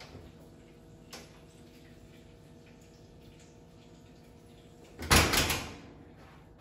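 Oven door of a kitchen range pulled open with a couple of light clicks, then swung shut with a loud bang about five seconds in that rattles briefly before dying away.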